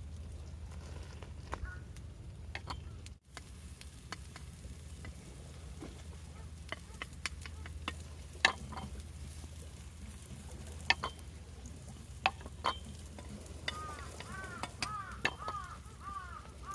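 Food sizzling in a frying pan, with scattered sharp clicks and taps of a utensil. Near the end comes a quick run of short, arching squeaky chirps.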